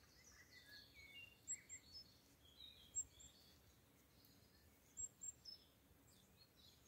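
Faint songbirds chirping: short high calls scattered throughout, some in quick pairs or threes.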